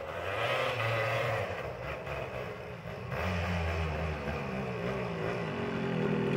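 Kawasaki KXT250 Tecate 3 three-wheeler's single-cylinder two-stroke engine revving up and down as it rides on snow, getting louder as it approaches.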